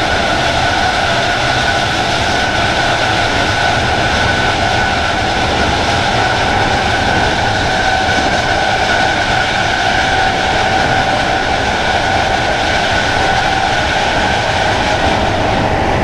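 Class 319 electric multiple unit's traction motors running loudly at speed, heard from inside the carriage at floor level. Two steady whine tones ride over the rumble of the train on the track.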